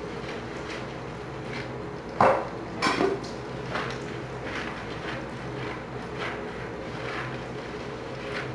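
Dishes being washed by hand at a kitchen sink: plates and utensils clink and knock while being scrubbed with a sponge, with two louder clatters about two and three seconds in. A steady low hum runs underneath.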